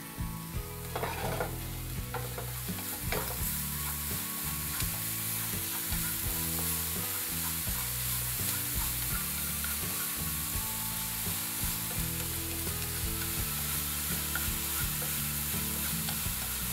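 Minced shallots, garlic and lemongrass sizzling in hot oil in a nonstick frying pan, stirred with chopsticks. The sizzle is a steady hiss, with a few clicks of the chopsticks against the pan in the first three seconds.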